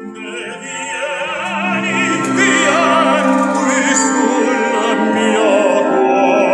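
Operatic singing with a wide vibrato over an orchestra, swelling louder over the first few seconds and then holding full, played back through a Harbeth P3ESR monitor speaker.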